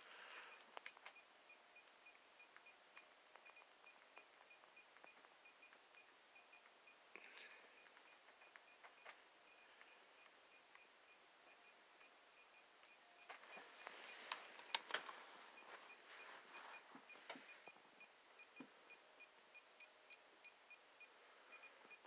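GQ EMF-390 EMF/RF meter's built-in alarm beeping faintly in a steady run of short, high beeps, the sign that its electric-field reading is over the alarm threshold. A stretch of rustling and clicks rises over the beeps about two-thirds of the way through.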